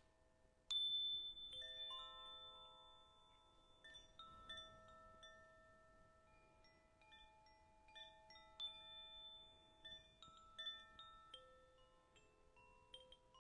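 Metal chimes struck in a loose, irregular pattern, with many bell-like notes at different pitches ringing on over one another. The brightest and loudest strike comes about a second in.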